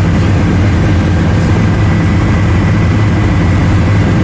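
Helicopter in flight: a loud, steady drone of rotor and engine with a strong low hum, cutting off abruptly at the very end.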